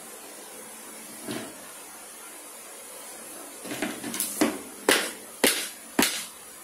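Handling knocks: a soft knock about a second in, then a quick run of about six sharp knocks and taps in the second half.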